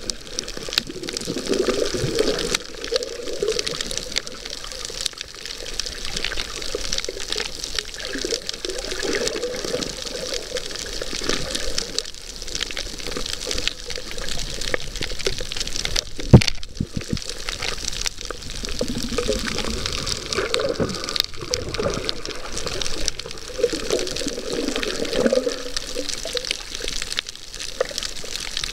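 Water sloshing and rushing as heard by a camera underwater, in uneven swells with a fine crackling hiss running through it. One sharp knock sounds about sixteen seconds in.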